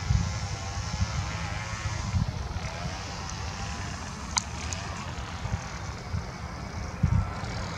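Airbus A320-family twin-engine jet airliner at take-off thrust as it lifts off and climbs away, a steady rush of distant jet engine noise over a gusty low rumble.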